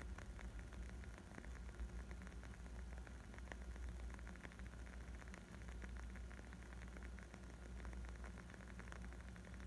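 Wood fire crackling: a steady, dense scatter of small pops and snaps over a low, even rumble.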